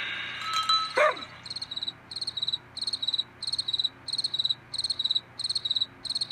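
A brief sliding sound about a second in, then crickets chirping steadily, about three quick trilled chirps a second.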